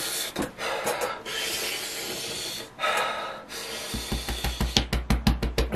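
A person panting and hissing breath in and out through an open mouth against the burn of an extremely hot chili chip. About four seconds in, music with a fast, pounding beat starts.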